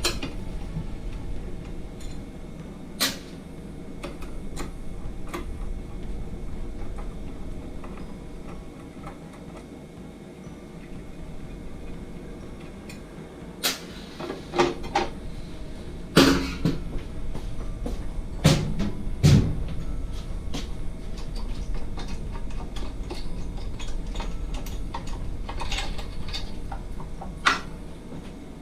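Scattered clicks and knocks of meat slicer parts and tools being handled, clustered about halfway through and again near the end, over a steady low hum.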